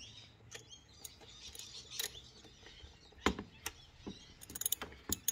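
Socket ratchet wrench clicking in short irregular runs as it loosens the tight 13 mm oil filter cap bolt, with a few sharper metallic knocks and a quick run of clicks near the end.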